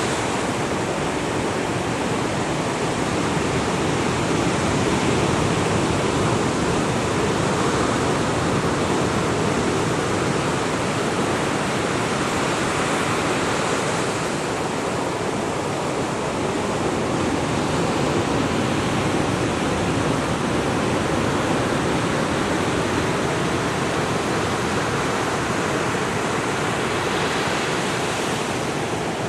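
Heavy Atlantic surf breaking on a beach and around offshore rocks: a steady rush of waves that swells and eases only slightly.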